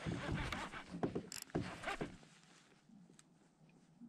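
Baitcasting reel being cranked against a hooked pike: a rapid mechanical clicking and whirring for about the first two seconds, then quieter, with a few faint ticks.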